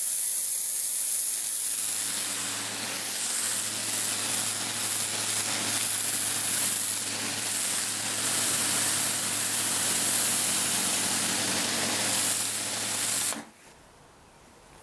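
Karcher K3.550 pressure washer spraying patio slabs through a rotating 'dirt blaster' lance: a loud, steady hiss of the high-pressure jet with a low hum underneath. It stops suddenly near the end.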